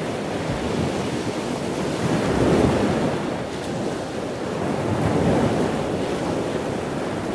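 Rushing sound of ocean surf that swells and ebbs, rising twice about two and a half seconds apart.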